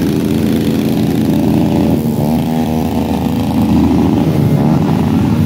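Motorcycle engines running and revving, their pitch dipping and rising again a few times.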